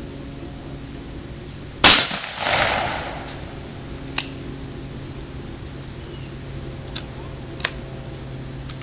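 A single rifle shot about two seconds in, a sharp crack followed by a duller rush of sound lasting about a second. Later come a few faint light clicks as the rifle is handled and readied for the next shot.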